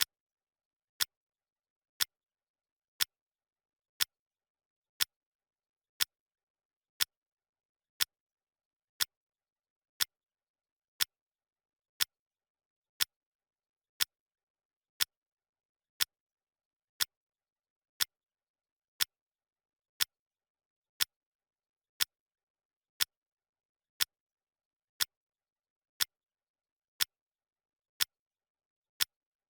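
Clock ticking sound effect: one sharp, short tick every second, evenly spaced, marking the seconds of a countdown timer.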